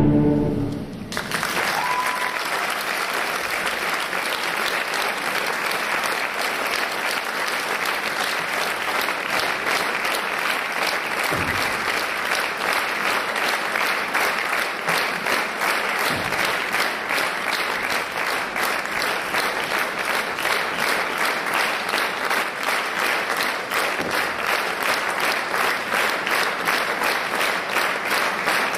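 Theatre audience applauding as the music ends about a second in. The clapping settles into an even, rhythmic beat.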